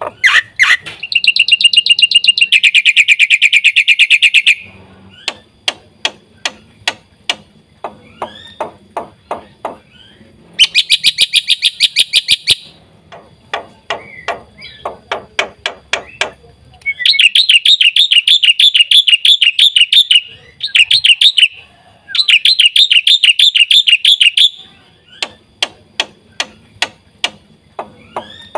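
Black-winged myna (jalak putih) singing a full, varied song: long harsh rattling trills of two to three seconds each alternate with runs of sharp clicking and chipping notes.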